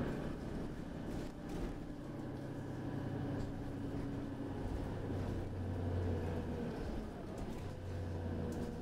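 Interior of a city bus on the move: the engine and drivetrain run with a steady low drone and a faint whine that slowly shifts in pitch, over road rumble. There are a few faint rattles about a second in.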